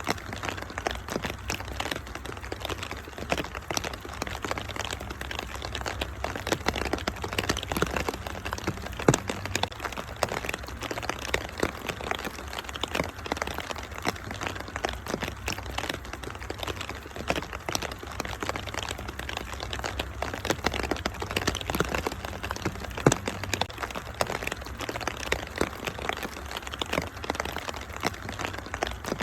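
Wood fire in a fireplace crackling with many small sharp pops over a steady low rumble, mixed with an even hiss of rain. A couple of louder pops stand out, one near the middle and one about three-quarters of the way through.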